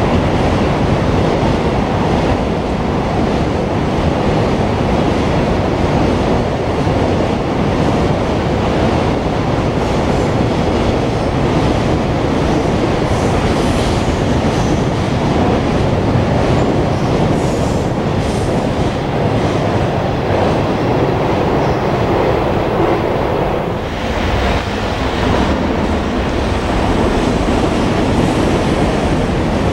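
Electric-hauled freight train of container wagons passing at speed: a loud, steady rumble of steel wheels on the rails, with a brief dip in the noise about three quarters of the way through.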